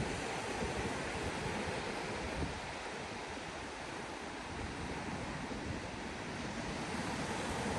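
Steady rushing wash of sea surf on the shore, with some wind rumbling on the microphone.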